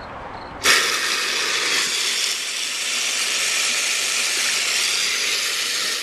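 Homemade toilet flushing at its top water pressure: a sudden, steady rushing hiss of water jetting and swirling into the bowl. It starts under a second in and cuts off abruptly at the end.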